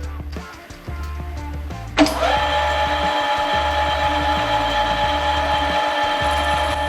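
A power tool's electric motor starts about two seconds in, spins up with a brief rise in pitch, and runs on at a steady whine. Background music with a repeating bass line plays throughout.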